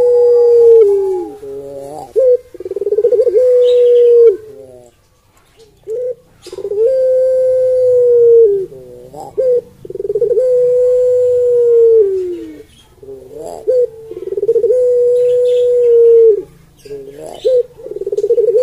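Barbary dove (ringneck dove) giving a series of long drawn-out coos, each held for about two seconds at a steady pitch and falling away at the end, repeated roughly every four seconds with short rising notes in between.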